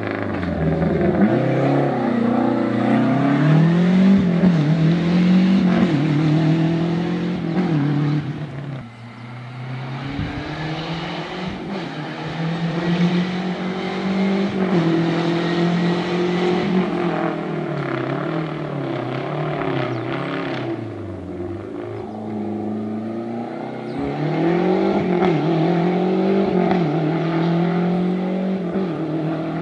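Lancia Delta Integrale Evoluzione rally car's turbocharged four-cylinder engine revving hard through the gears at racing speed, its note rising and falling over and over as it accelerates and brakes. It drops quieter twice along the way.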